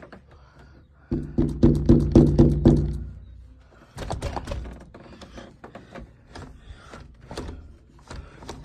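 A sliding glass patio door rumbling along its track for about two seconds, followed by a sharp thud and a run of lighter knocks and clatter against the door and its frame.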